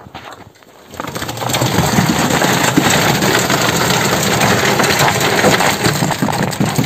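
Stiff concrete mix of cement, sand and crushed stone sliding out of a tipped galvanized metal bucket into wooden formwork. It makes a loud, gritty rushing pour that starts about a second in and keeps going.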